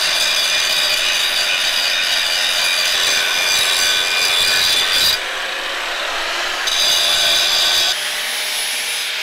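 Angle grinder grinding steel: a steady high whine with a rough scraping edge. The sound changes abruptly about five, six and a half, and eight seconds in as one grinding take gives way to another.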